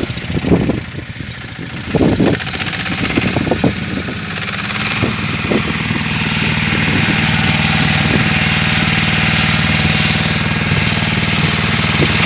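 An engine running steadily with a humming drone. Several sharp knocks sound in the first four seconds, and a steady hiss comes in about four seconds in and holds.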